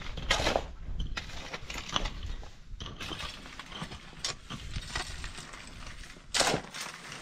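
A pickaxe striking and scraping stony soil: a few scattered knocks, the loudest near the end.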